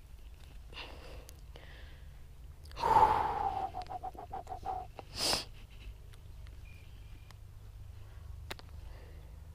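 A person's wheezy breath: a loud exhale with a falling, rasping tone, then a short sharp breath just after.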